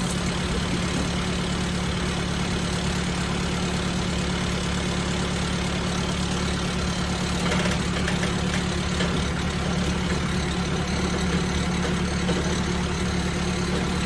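Compact tractor engine idling steadily, a constant low hum with a brief clatter about halfway through.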